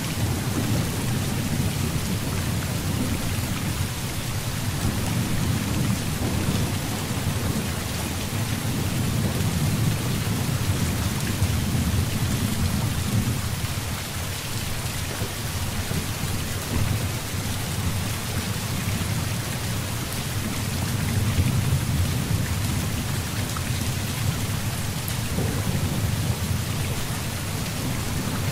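Heavy rain falling steadily in an even hiss, with low rolling thunder that swells and fades a few times.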